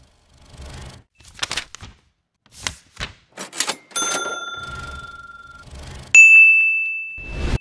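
A string of motion-graphics sound effects: several short whooshes and hits, then a metallic chime about four seconds in that rings on for about two seconds. A louder, higher bell-like ding follows about six seconds in, fading slowly as a whoosh swells up near the end.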